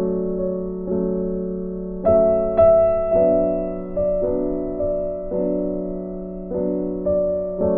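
Slow instrumental background music: notes and chords struck about once a second, each ringing out and fading.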